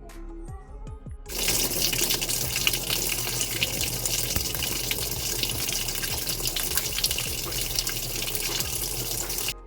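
Water running steadily in a semi-automatic washing machine, starting about a second in and cutting off suddenly near the end. The water keeps passing out through the drain without the drain knob being opened, a leak caused by a coin stuck in the drain valve.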